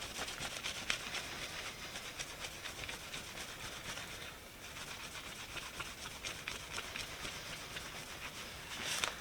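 A rag rubbing polishing compound into screwdriver handles: a continuous scratchy rubbing full of small clicks, which pauses briefly about four seconds in and grows louder near the end.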